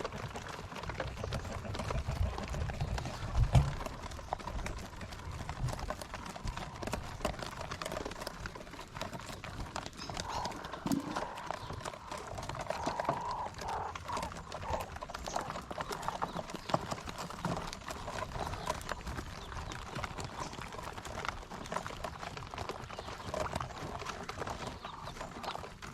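Quail in their pens, a dense, irregular patter of small taps and scratches, with brief soft calls now and then.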